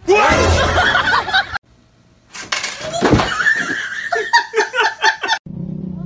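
People laughing loudly in two stretches with a short silence between them; the second stretch ends in quick, repeated ha-ha laughs.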